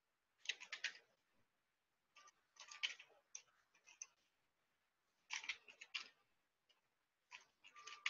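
Faint clicking of computer keyboard keys being typed, in about five short runs of quick keystrokes with pauses between them.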